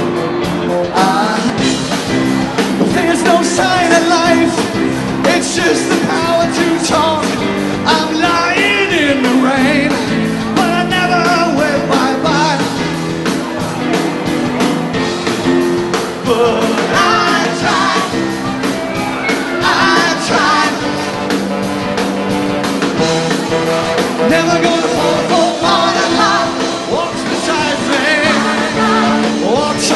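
Live rock band playing with singing: vocals over electric guitar and a drum kit keeping a steady beat.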